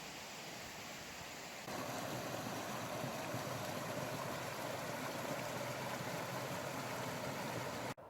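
Rushing stream water, a steady splashing that gets louder at a cut a little under two seconds in and stops abruptly just before the end.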